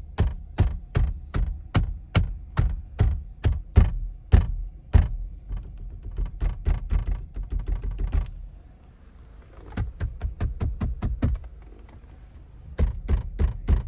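A hand banging repeatedly on a car's front door panels, listening for a loose rattle; the passenger door is compared with the driver's door. The knocks come at about two a second, then turn into a faster run of lighter taps, pause briefly, and return in short bursts.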